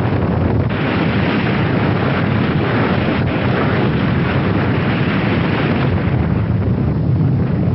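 A loud, steady rushing rumble of noise with no tones or rhythm, heaviest in the low end, starting abruptly.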